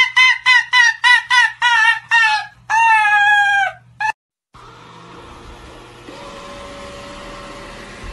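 Arctic fox screaming: a rapid run of shrill, yelping cries, about four a second, then one longer drawn-out scream and a short last cry. After a brief gap, a robot vacuum's steady hum follows.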